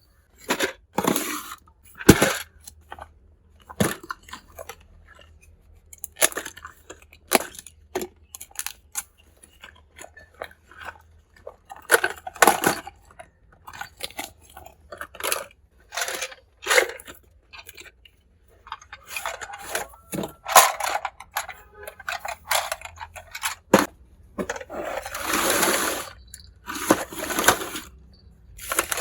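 Miniature toy kitchen pieces being handled and unpacked: a run of small clicks and taps of little pots, utensils and parts set down and knocked together, with crinkling of plastic packaging, longest about 25 to 27 seconds in.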